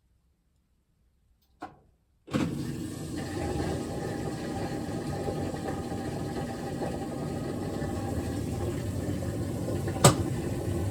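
GE top-load washer's drain pump kicks on suddenly about two seconds in and runs steadily with water rushing out, the washer draining before its rinse. A faint click comes just before the pump starts, and a sharp knock comes near the end.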